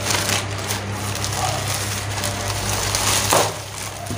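Plastic courier bag and bubble wrap crinkling and rustling as they are handled and pulled open, loudest about three seconds in, over a steady low background hum.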